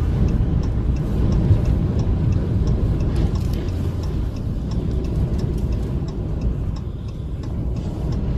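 Steady low rumble of strong wind and road noise around a vehicle on a highway, with a faint tick repeating about twice a second.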